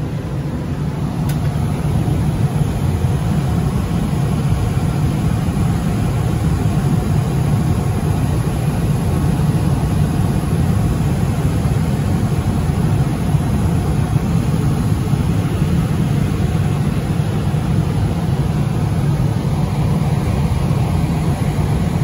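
Johnson Controls / Unitary Products residential gas furnace running, a steady low hum from its inducer motor and lit burners. The flame now stays on instead of dropping out after a few seconds, the fault that had caused ignition lockouts, which the technician ties to the flame sensor.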